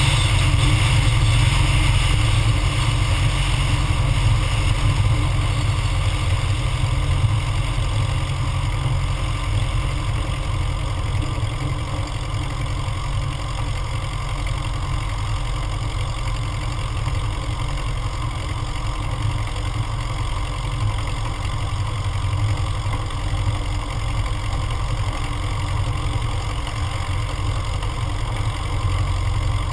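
Cessna 150M's Continental O-200 four-cylinder air-cooled engine and propeller running at low taxi power: a steady low drone that eases slightly in level over the first ten seconds or so.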